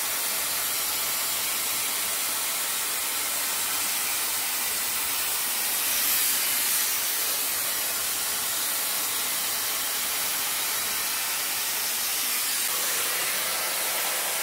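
Webeauty 5-in-1 hot-air styler with its round bristle brush attachment fitted, its high-speed motor running and blowing a steady hiss of air through the brush while it styles hair.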